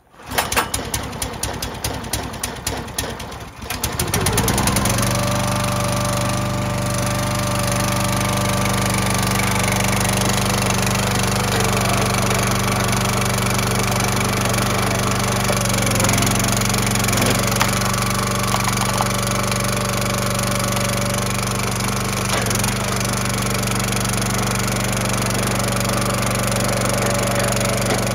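Small gasoline engine on a Dirty Hand Tools log splitter starting up: it sputters unevenly for a few seconds, then settles about four seconds in into a steady run, with a couple of brief dips in pitch around the middle.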